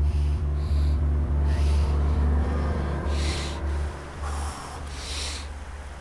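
A deep, pulsing drone from the film score drops away about four and a half seconds in. Over it a person takes about six sharp, heavy breaths through the nose.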